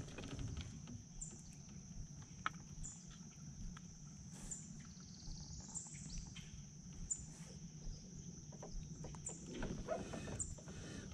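Outdoor swamp ambience: a steady high insect drone with short, high bird chirps repeating roughly once a second, over a low steady rumble. A few faint clicks of bait and tackle being handled.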